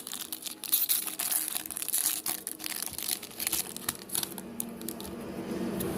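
Foil trading-card pack wrapper being torn open and crinkled by hand: a run of crackles for about four seconds, then quieter.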